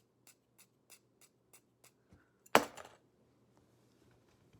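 Small toy clicking in an even rhythm, about three clicks a second, stopping about two seconds in; about half a second later comes a single loud knock.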